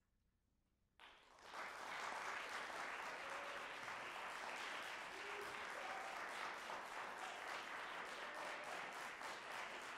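A short near-silent pause after the piece ends, then about a second in an audience breaks into applause, which continues steadily.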